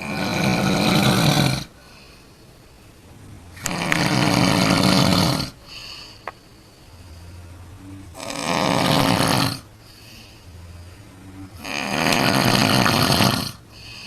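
A woman snoring loudly in her sleep: four long snores about four seconds apart, with quieter breathing between them.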